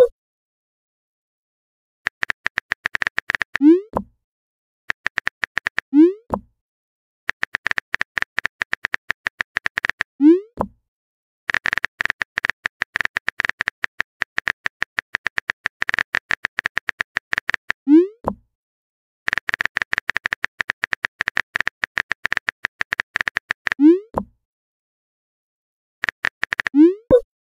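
Texting-app sound effects: runs of quick keyboard-tap clicks, each ending in a short rising bloop as a message is sent, six times in all.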